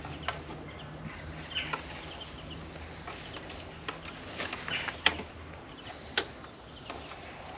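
Scattered sharp metal clicks and knocks from hand and tool work on a Triumph Scrambler 1200 XC's rear grab rail bracket, the loudest about five seconds in. Birds chirp in the background.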